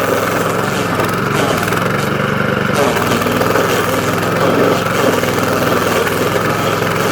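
Walk-behind DR stump grinder's gasoline engine running steadily under load as its cutter wheel grinds down a stump, the engine note shifting slightly about three seconds in.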